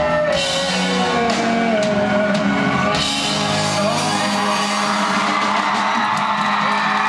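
Rock band playing live with guitar, keyboard and drums, with singing over it. The drum hits stop about three seconds in while held notes carry on, and crowd shouts and whoops come through.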